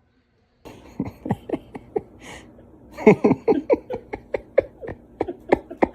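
Laughter in quick, regular bursts, about four or five a second, each dropping in pitch. It starts about a second in and grows loudest around the middle.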